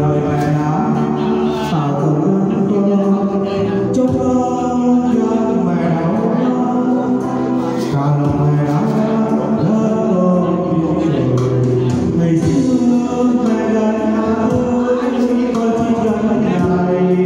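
A man and a woman singing a duet through handheld microphones, with musical accompaniment.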